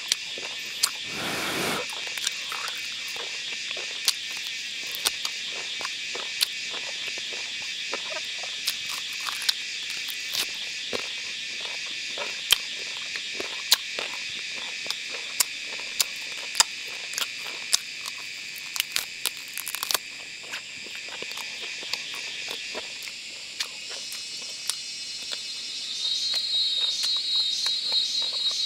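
Steady high-pitched chorus of forest insects, with many scattered sharp clicks and a brief rustle about a second in. Near the end a louder, rapidly pulsing insect call joins in.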